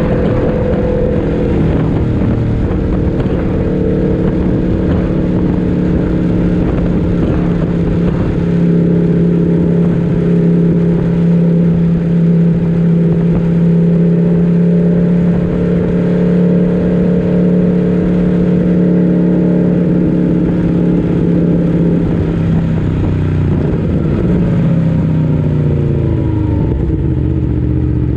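Onboard recording of a race motorcycle's four-cylinder engine held at steady revs for a long stretch, then falling in pitch over a few seconds near the end as the bike slows.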